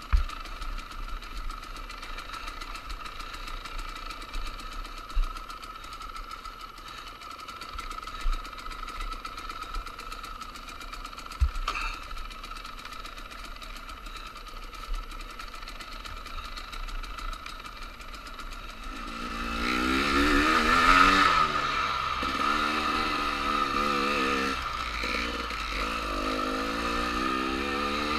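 Dirt bike engine running at low throttle, with a few sharp knocks as the bike rides over rough ground. About two-thirds of the way through it gets louder and revs up and down repeatedly as the rider accelerates.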